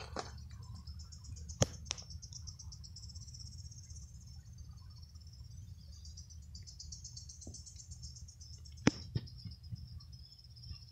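A steady, high-pitched chorus of insects trilling over a low rumble. There are two sharp pops about a second and a half in and two more near the end.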